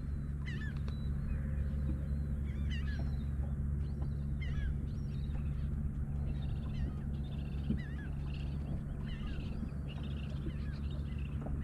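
Birds calling repeatedly in short chirping calls over a steady low motor hum.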